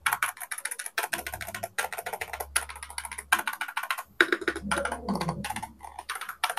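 Typing on a Zifriend ZT104 full-size mechanical keyboard: a rapid, uneven clatter of keystrokes run together, played so the switch sound can be heard.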